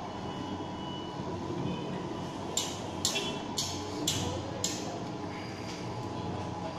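Heavy sliding gate rolling along its ground track, driven by a CAME BK1800 gate operator: a steady hum and rumble, with five sharp metallic clinks about half a second apart in the middle.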